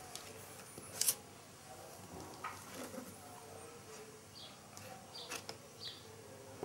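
Handling noises from unpacking a laptop from its cardboard box: scattered rustling, scraping and light taps, with one sharp click about a second in.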